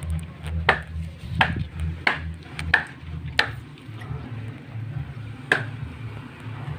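Six sharp metallic clinks, each ringing briefly: five come about two-thirds of a second apart, and the last is near the end. Under them runs a low steady rumble.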